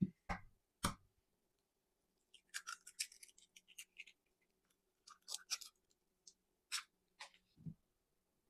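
Eggs being cracked into a glass measuring cup: sharp taps followed by clusters of crisp crackling clicks as the shells break and are pulled apart, twice. There is a dull knock near the end.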